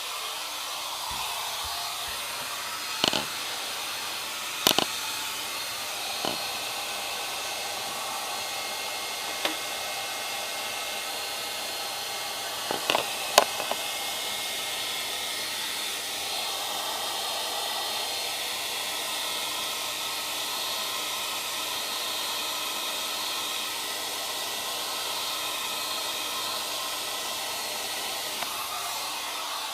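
Handheld Revlon hair dryer running steadily, blowing hot air to melt frost off a freezer's evaporator compartment, with a few sharp knocks in the first half.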